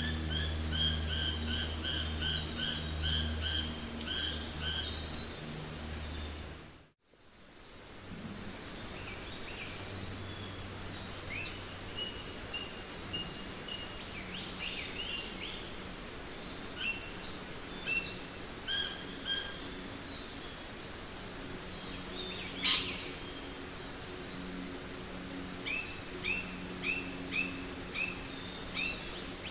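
Jungle ambience: many birds chirping and trilling in repeated phrases over a steady background hiss, with a low hum at first. About seven seconds in it fades out briefly and comes back with different birdsong, including one sharp, loud call later on.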